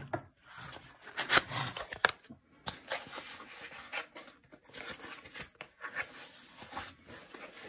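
Cardboard shipping box being handled and slid away across the desk: rustling and scuffing with scattered light knocks and clicks, loudest in the first two seconds.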